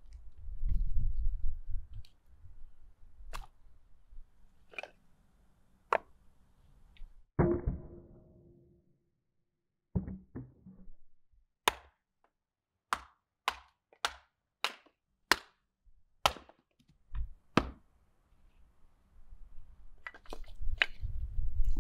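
Hatchet splitting firewood into kindling on a tree-stump chopping block: a run of about ten sharp wooden chops, roughly two a second, after a few scattered lighter knocks. Near the end, split sticks clatter as they are gathered from the grass.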